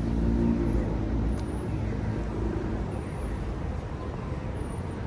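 Road vehicle noise: a steady low rumble of engine and tyres, with a pitched engine hum that is loudest about half a second in and fades over the next two seconds.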